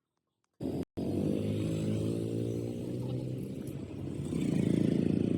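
A motor vehicle's engine running steadily close by, cutting in abruptly after silence and growing louder in the second half.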